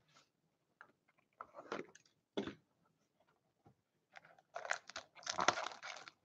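Cardboard box of Upper Deck Engrained hockey cards being opened and its foil-wrapped packs handled: a few short rustles, then denser crinkling of foil and cardboard in the last two seconds.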